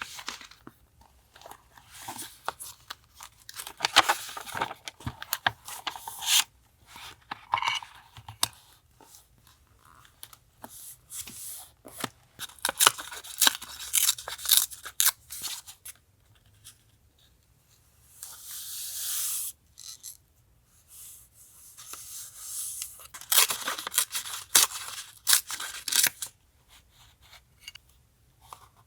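Paper being torn and handled for a journal collage, in crackling bursts with short pauses between, and one smoother, longer rasp about two-thirds of the way through.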